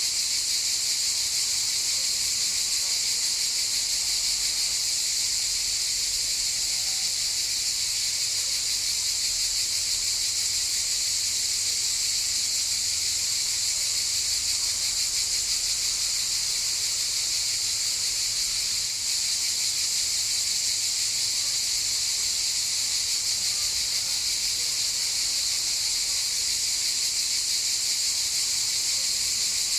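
Cicadas buzzing steadily in one continuous high-pitched drone, with a momentary dip in level about two-thirds of the way through.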